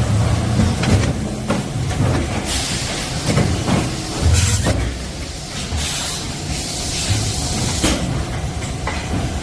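1992 DM-SC-050 single-station blow molding machine running: a steady low hum with several bursts of hissing air and a few sharp clicks.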